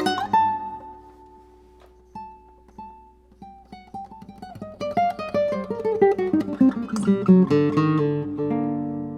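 Classical guitar played solo: a chord rings out and fades, a few sparse notes follow, then a fast run of notes descends in pitch and builds into louder chords near the end.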